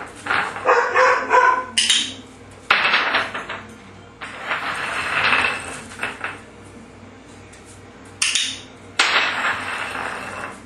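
American bulldog puppy barking and whining over the first couple of seconds, then a small retrieve dumbbell clattering and sliding on a tile floor several times as the puppy picks it up, noses it and drops it.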